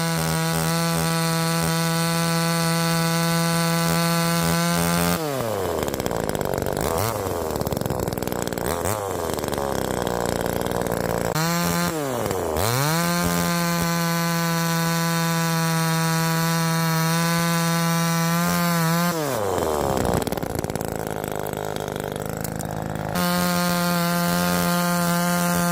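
Neotech 12-inch two-stroke gas chainsaw running at full throttle while cutting small limbs. Its high, steady note drops sharply and recovers each time the chain loads up in the wood, in two spells of cutting, about five seconds in and again about twenty seconds in.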